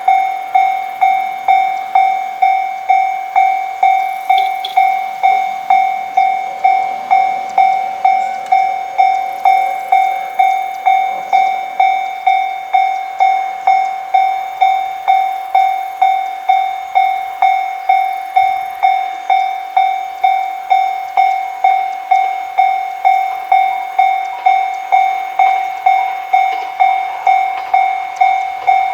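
Japanese railroad crossing warning bell ringing, the same single ringing tone struck at an even pace of about one and a half strikes a second.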